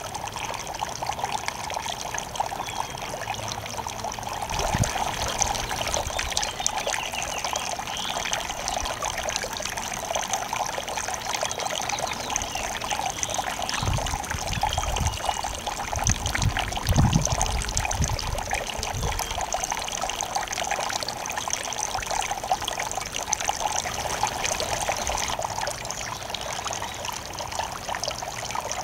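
Small garden fountain's water steadily trickling and splashing over rocks from a terracotta spout, with a few brief low rumbles around the middle.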